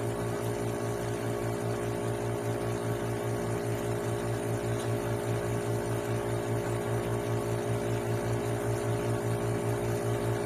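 Steady hum of running lab machinery, a small motor or pump, with a low throb pulsing about five times a second under steady higher tones.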